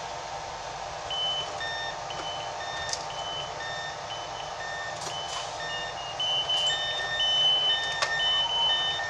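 Door-closing warning beeps from a standing InterCity 225's Mark 4 coaches. The short high beeps start about a second in and grow busier and louder from about six seconds, over the steady hum of the stationary train. They warn that the doors are closing before departure.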